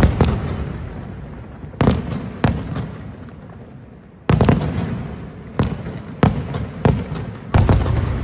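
Aerial firework shells bursting overhead: about ten sharp booms in irregular succession, some in quick pairs, each fading away slowly.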